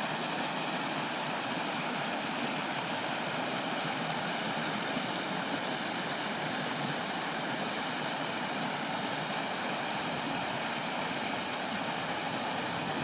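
Flash-flood water rushing down a normally dry desert creek bed, a steady loud rush of muddy runoff that does not rise or fall.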